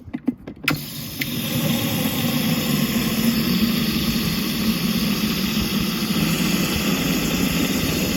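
Hoover upright carpet cleaner's motor switched on with a click just under a second in, then running steadily with a strong low hum and rushing suction air.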